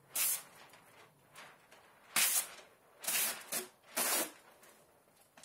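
Plastic window-film liner being peeled off the adhesive side of tint film: four short hissing swishes about a second apart.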